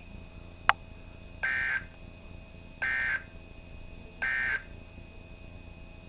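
NOAA Weather Radio SAME digital data tones, three short identical raspy warbling bursts about a second and a half apart, played through a weather alert radio's speaker: the end-of-message code that closes a broadcast tornado warning. A sharp click comes just before the first burst.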